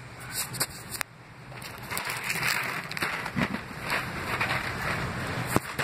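A phone being handled and set down on a rough concrete ledge. A few knocks come in the first second, then a few seconds of scraping and rubbing as the phone shifts against the concrete.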